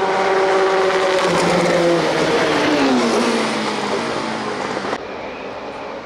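Prototype race car engine at speed, its note holding steady and then falling in pitch about halfway through as the car passes. Near the end the sound switches abruptly to quieter engine noise from cars further off.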